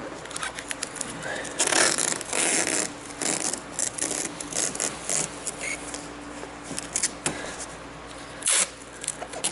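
Green 3M masking tape being pulled off the roll and pressed and rubbed down along the car's paint by gloved hands: a run of irregular ripping and rubbing sounds of varying length.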